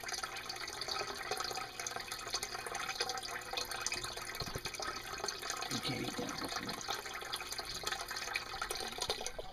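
Water trickling and bubbling in a snapping turtle's tank: a steady, dense crackle of small splashes and drips, with a couple of dull bumps around the middle.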